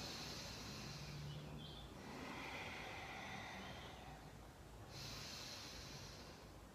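Slow, deep diaphragmatic breathing: soft, drawn-out breaths of air through the nose, each lasting about two seconds, with a brief pause about four seconds in.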